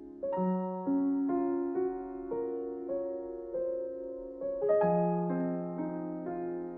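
Slow, gentle piano music: a simple melody of single notes, each struck and left to ring, over held bass notes.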